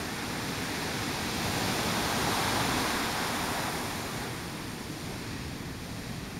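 Ocean surf: waves breaking and washing in close by, a steady rush that swells about two to three seconds in and eases off after.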